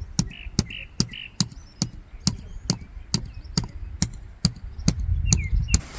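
Sharp knocks repeating at an even pace, about two and a half strikes a second, with three short high chirps in the first second or so.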